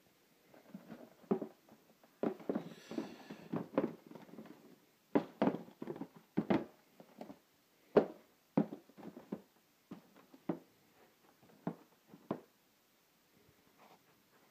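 Sneakers being handled and set down on cardboard shoeboxes: irregular soft knocks and rustling, with a few sharper taps in the middle, then it goes quiet.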